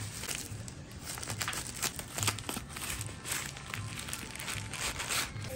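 Packaging being handled and crinkled while a parcel is unwrapped: a continuous crackly rustle with many small clicks.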